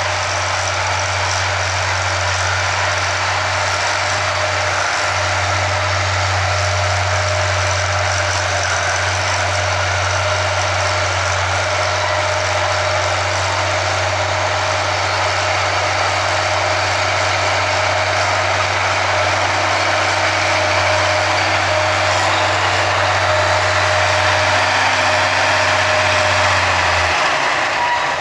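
Crawler bulldozer's diesel engine running steadily under load as it pushes a pile of earth with its blade.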